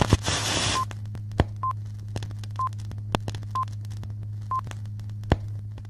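Old film-leader countdown sound effect: a short high beep about once a second, five times, over a steady low hum with scattered clicks and pops, after a burst of hiss at the start.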